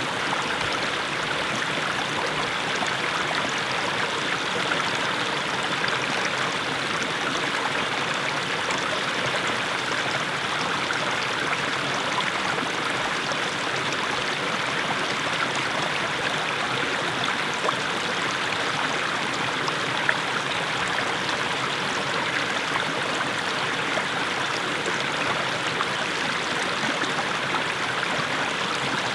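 Small mountain brook splashing steadily over low steps of mossy stones.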